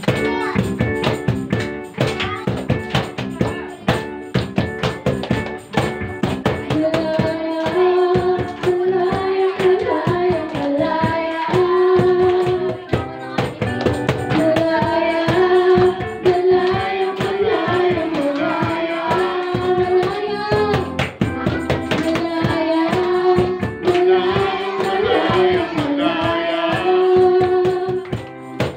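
Live worship band music with a steady percussion beat; a sung melody comes in about seven seconds in.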